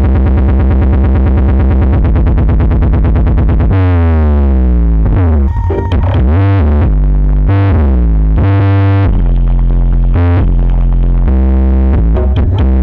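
Loud electronic dance music played at high volume through a big sound system: synthesizer lines over deep, heavy bass notes, with a fast pulsing rhythm in the first few seconds and sliding synth notes from about four seconds in.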